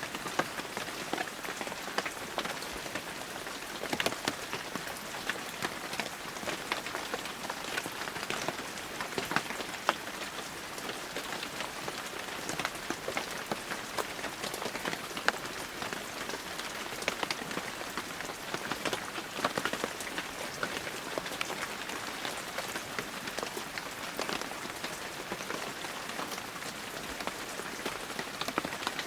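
Heavy rain falling steadily, a dense hiss of rain on surfaces with many sharp individual drop hits scattered through it.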